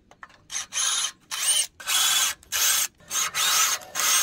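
A hand or power tool worked in short repeated strokes while fitting the restored engine mount: about seven noisy bursts, each under half a second, with brief pauses between them.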